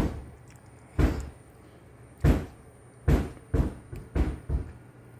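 Seven short thumps at irregular intervals, from about half a second to over a second apart, over a low steady hum.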